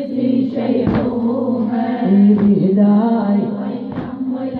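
A mullaya's sung Shia mourning lament in Iraqi Arabic: one voice holding long, wavering melodic lines, with three sharp beats at an even pace of about one every second and a half, keeping the rhythm of the lament.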